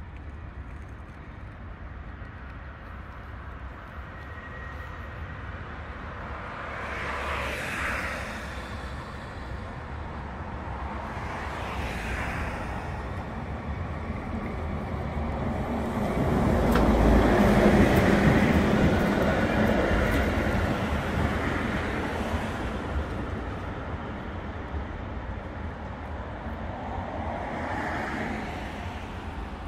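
Historic 1913 MAN tramcar with a trailer rolling along grass-covered track, its wheels rumbling on the rails, swelling to its loudest about two-thirds of the way through and then fading as it moves away. Road vehicles swell and fade briefly a couple of times before it.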